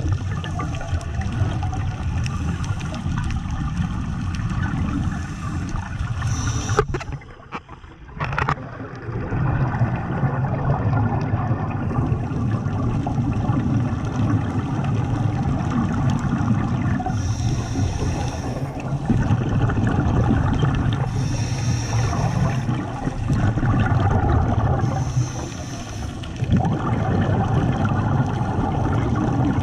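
Scuba breathing heard underwater: a regulator's exhaled bubbles gurgling out in surges every three to four seconds, over a steady low rumble, with a few sharp clicks about seven seconds in.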